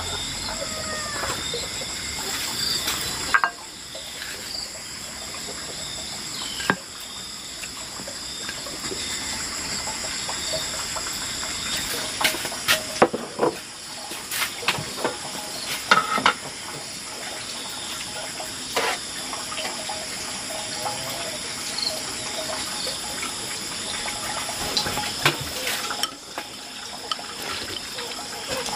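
Running water with scattered knocks and clinks.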